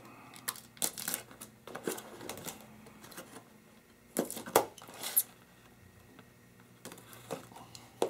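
Cardboard boxes being handled and the packing tape holding them together being cut with a box cutter: a scatter of short scrapes, taps and rustles, the loudest about four and a half seconds in.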